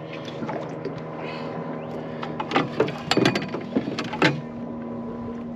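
A boat's motor humming steadily, with a cluster of sharp knocks and clatter from about halfway in.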